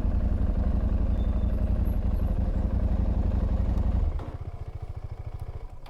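KTM adventure motorcycle engines idling as the bikes are parked. About four seconds in the loud engine note cuts off, leaving a quieter, rapidly pulsing idle that fades away near the end.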